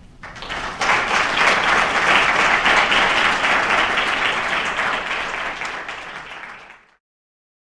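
Audience applauding, swelling in the first second, then easing off and cutting off suddenly near the end.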